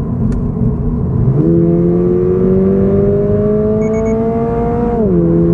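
Toyota GR86's 2.4-litre flat-four engine pulling hard under acceleration: its note steps up about a second in, climbs steadily through the revs, then drops sharply near the end as the automatic gearbox shifts up. Three quick short beeps sound midway.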